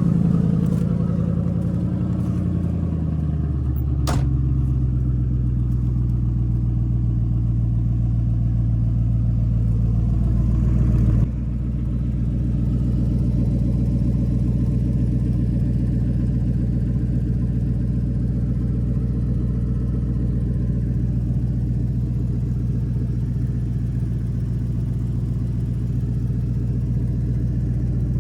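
2005 Mercury Grand Marquis's 4.6-litre V8 idling as it warms up after a cold start, its exhaust open behind the catalytic converters through a Crown Vic H-pipe with no mufflers. The idle settles lower over the first few seconds, with a sharp click about four seconds in; about eleven seconds in the sound drops abruptly, then stays steady.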